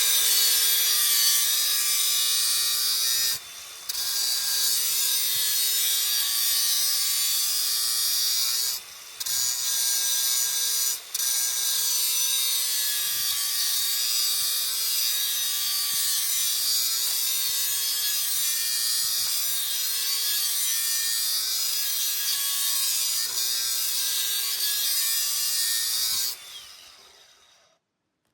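Coarse grinder grinding the steel edge of a box splitting wedge to sharpen it, a loud steady grinding with a motor tone underneath. The grinding breaks off briefly three times, then stops near the end as the grinder winds down.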